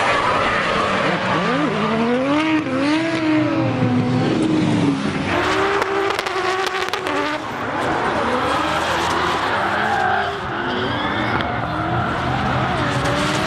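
Drift cars' engines revving up and down with tyres squealing as the cars slide sideways. The sound changes abruptly about five seconds in as it cuts to another clip.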